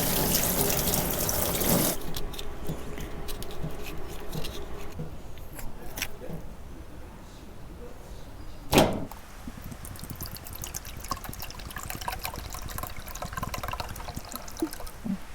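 Stream water rushing for about two seconds, then cutting off abruptly; after it, scattered light clicks and taps with one sharp knock near the middle.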